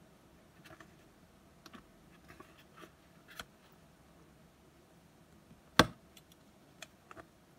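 Faint paper rustles and small taps from handling the pages of a ring-binder planner, with one sharp, much louder click about six seconds in.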